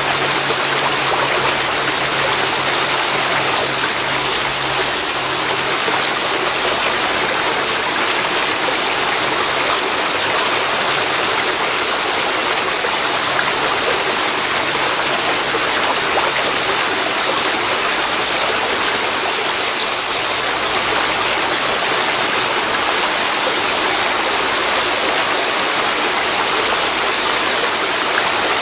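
Waterfall pouring into a river: a loud, steady rush of water with no breaks.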